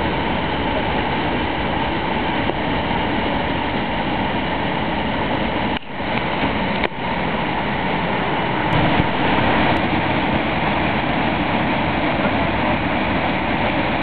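The Ain river in flood pouring over the Pertes de l'Ain falls: a loud, steady rush of whitewater. It breaks off briefly twice near the middle.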